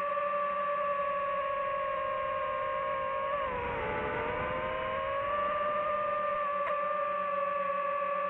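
DJI FPV drone's motors and propellers whining at a steady pitch. About halfway through, the pitch dips for a second as the throttle eases, then rises back.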